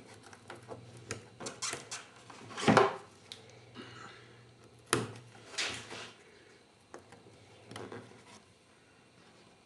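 Light clinks, taps and rubbing from small metal hardware and tools being handled as a bolt and dome nut are fitted through a fin blade and foot pocket. The loudest knock comes nearly three seconds in, with another sharp click about five seconds in.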